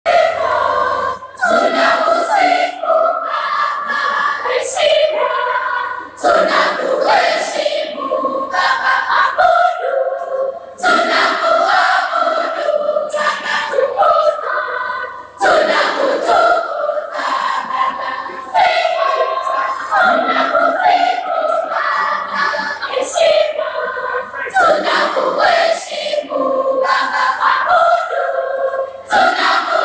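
School choir singing together in parts, in phrases of several seconds with brief pauses between them.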